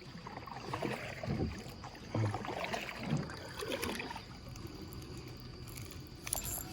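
Water sloshing and splashing around a kayak, in irregular swells for the first few seconds.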